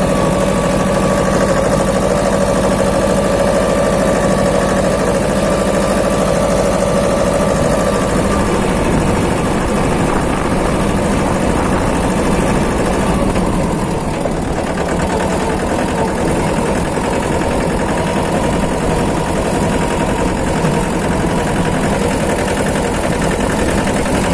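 Mahindra Jivo 245 DI mini tractor's two-cylinder diesel engine running steadily while driving, heard from the driver's seat with wind on the microphone. The engine note changes about a third of the way in and again a little past halfway.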